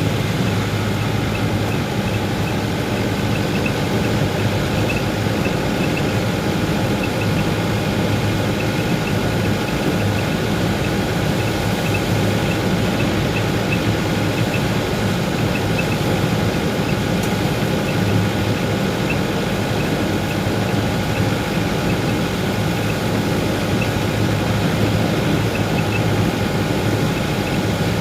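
A vehicle's engine running steadily, with a low hum and a constant wash of road noise.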